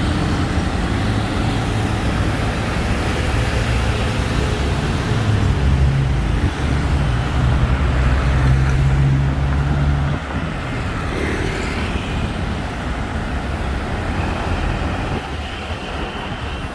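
Busy road traffic, with a heavy vehicle's engine running loudly close by for about the first ten seconds, its pitch stepping up a couple of times, before it drops away to a lower, even traffic noise.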